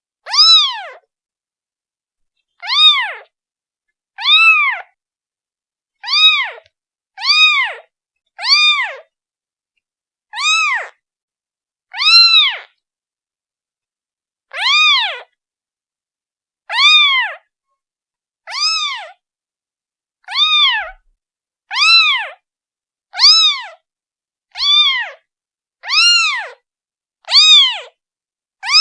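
A newborn kitten, a day old, meowing repeatedly to call its mother: short high cries that rise and fall in pitch, about seventeen of them, one every one to two seconds with silence between.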